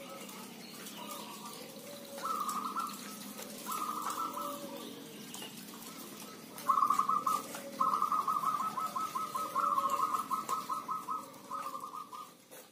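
Caged zebra doves cooing: soft low coos throughout, with short bursts of fast staccato notes about two and four seconds in, then a long rapid run of them through the second half.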